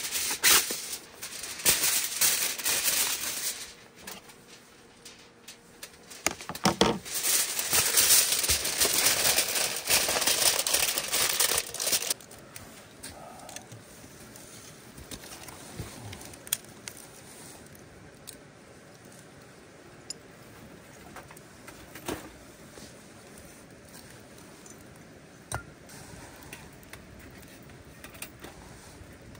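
Aluminium foil being pulled from its box and crinkled, a loud rustling for the first twelve seconds with a short lull about four seconds in. After that a wood fire burns quietly in a small metal fire pit, with a few scattered sharp pops.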